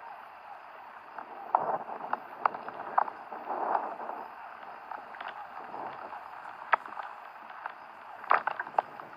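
Steady rain hiss with irregular sharp taps and clicks, likely drops striking close to the microphone, and a couple of brief rustles.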